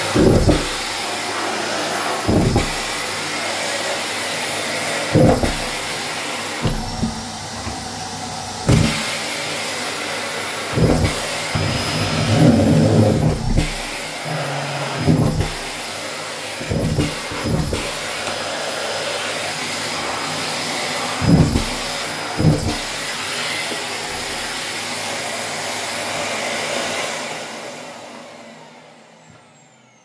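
Miele S771 vacuum cleaner running steadily while sucking up socks, with short thumps every one to three seconds. For about two seconds the sound thins and a high whistle appears, as if the nozzle is briefly blocked. Near the end the motor is switched off and winds down.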